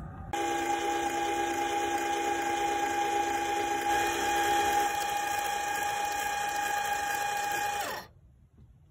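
Electric linear actuator motor running as it slides a chicken coop door open: a steady whine that starts a moment in and cuts off sharply near the end, where the door reaches its stop.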